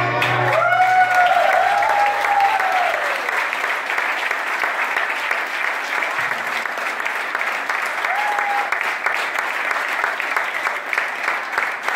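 Audience applauding steadily as the dance music stops, with a few shouted cheers in the first three seconds and another short cheer about eight seconds in.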